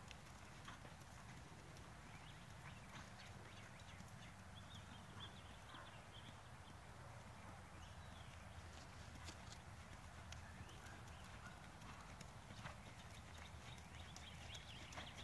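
Faint, muffled hoofbeats of a horse trotting on sand footing, over a low steady rumble.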